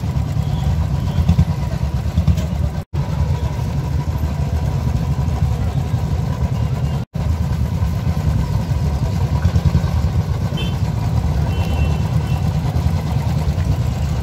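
Several motorcycle engines idling together, a steady low rumble broken twice by momentary dropouts, with voices of a crowd mixed in.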